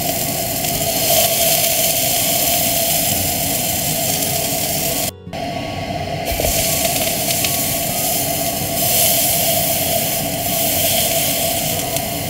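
Beef burger patty sizzling in hot oil in a frying pan, a steady hiss broken by a short cut about five seconds in.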